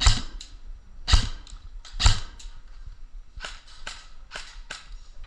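Airsoft guns firing single shots, sharp cracks at an irregular pace, the loudest three in the first two seconds and a string of fainter ones after.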